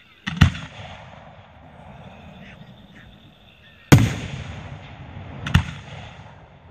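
Aerial firework shells bursting: three sharp bangs, the loudest about four seconds in, each followed by a rolling echo that dies away.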